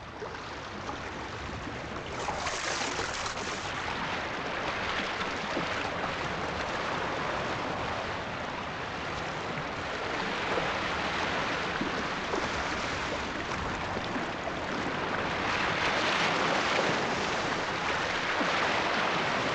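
Sea water washing and splashing as scuba divers break the surface, a steady wash that grows louder in the second half.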